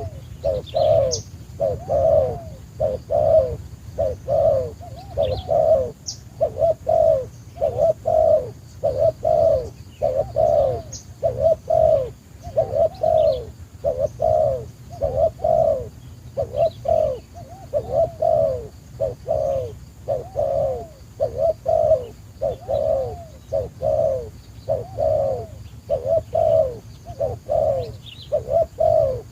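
Dove cooing over and over, short falling coos repeated about one to two a second without a break. A few faint high chirps from small birds come through now and then.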